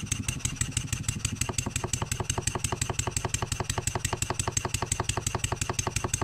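Stuart 7A model steam engine running on compressed air with a quick, even exhaust beat and a knock on each turn. The knock sharpens from about a second and a half in, while hand pressure on the output shaft loads it. The owner traces the knock to the main bearings.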